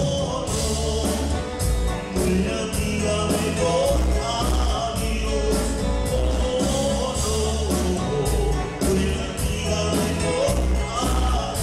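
Live Mexican cumbia band playing a song with a steady beat: drum kit and percussion, bass notes, electric guitar, saxophone and keyboard, with a singer.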